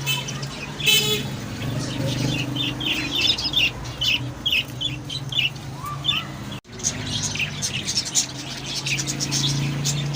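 Many caged small birds chirping in quick, overlapping short calls over a steady low hum, with a brief dropout about six and a half seconds in.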